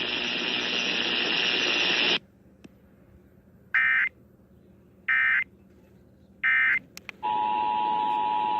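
Loud broadcast static hiss that cuts off about two seconds in. Three short screechy digital data bursts follow, about 1.3 s apart: the Emergency Alert System end-of-message code. Near the end the steady two-tone EAS attention signal begins.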